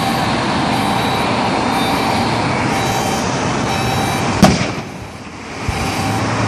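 Steady highway traffic noise, broken about four and a half seconds in by one sharp bang: a gas cylinder exploding in the burning truck.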